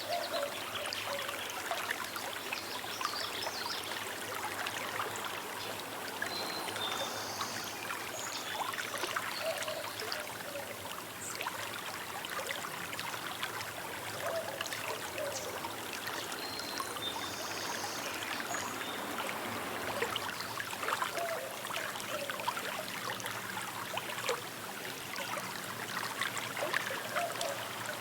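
Small river babbling and trickling over stones, a steady stream of fine splashes. A few short, high bird calls come through, about a third and about two thirds of the way in.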